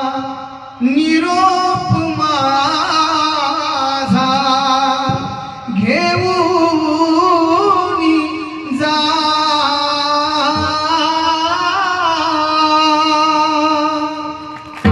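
A man singing a Marathi devotional abhang in three long, ornamented melismatic phrases over a steady held accompanying tone.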